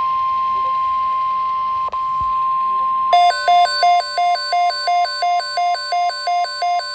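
Electronic weather-alert tones: a steady, high single tone near 1 kHz, joined about three seconds in by a loud pulsing two-note electronic alarm of about two pulses a second. They open a severe thunderstorm watch bulletin.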